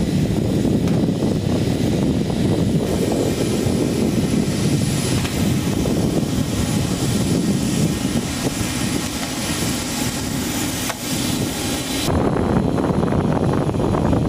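F-15E Strike Eagle jet engine noise on the flight line: a steady, loud rumble and hiss with a thin high whine. The sound shifts abruptly about three seconds in and again near the end.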